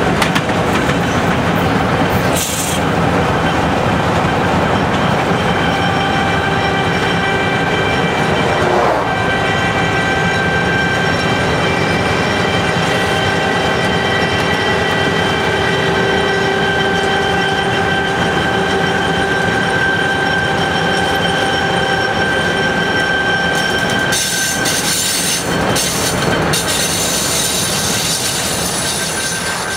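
Freight train led by a high-hood EMD GP38-2 locomotive rolling at speed: a steady rumble with thin, high wheel squeal, and a few sharp rail clacks about 2 and 9 seconds in and again near the end.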